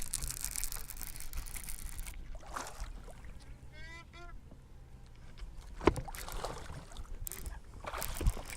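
A bird calls with a quick run of short honking notes about four seconds in, over rustling handling noise, with a sharp knock just before six seconds.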